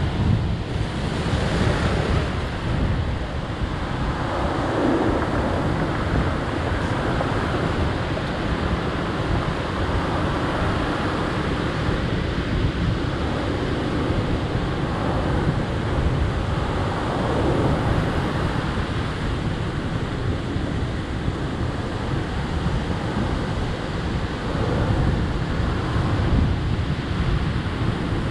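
Wind buffeting the microphone: a steady rushing noise, heaviest in the low end, swelling and easing slightly.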